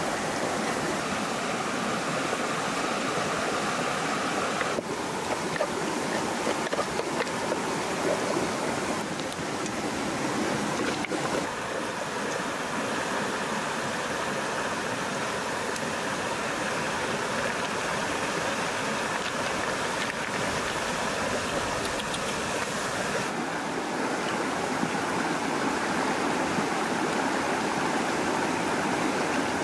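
Steady rushing of a stream flowing over rocks, changing slightly in tone a few times, with a few light knocks near the middle.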